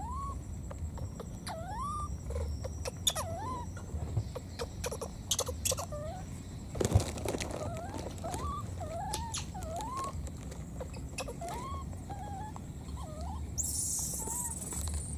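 Baby monkey calling over and over in short calls that rise and fall in pitch, about one a second, with scattered clicks and rustles and a brief high hiss near the end.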